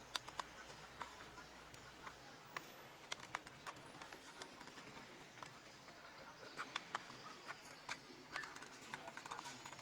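Faint, irregular light clicks and taps, a few of them sharper, over a low hiss.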